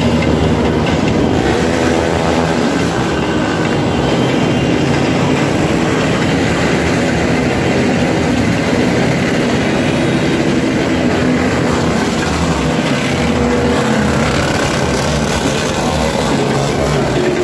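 Steady road and engine rumble of a moving car, heard from inside it, with a steady rush over it.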